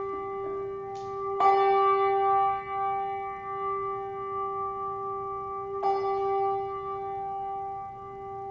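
Brass handbell rung twice, about four seconds apart. Each stroke sets off a bright, long ringing note that fades slowly, and the bell is still ringing from an earlier stroke at the start.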